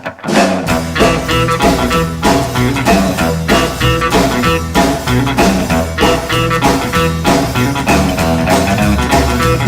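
Instrumental passage of a blues-rock song: guitar and bass playing a steady rhythmic riff with no singing, after a brief break right at the start.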